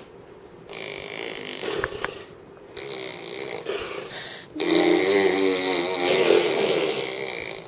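Nine-month-old baby vocalizing with no words: soft grunting and breathy noises, then a longer, wavering babble from about halfway in that is the loudest sound.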